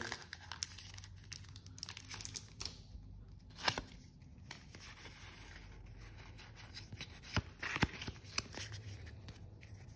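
Quiet handling of Pokémon booster packs: foil pack wrappers tearing and crinkling as they are opened, with scattered small clicks and ticks.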